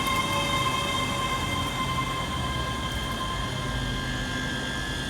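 Scotrail Class 385 electric multiple unit moving through the station: a steady electric whine with several high tones over a rumble of wheels on rail. The highest-pitched tone fades about three seconds in.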